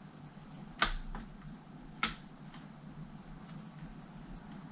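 Two sharp plastic clicks about a second apart, the first the louder, with a few faint ticks of handling: the touchpad button clips being worked into place in the brittle plastic case of a Dell Latitude CPi laptop.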